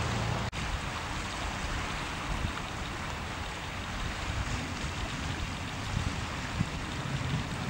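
Wind blowing on the microphone: a steady low rushing noise that cuts out for an instant about half a second in.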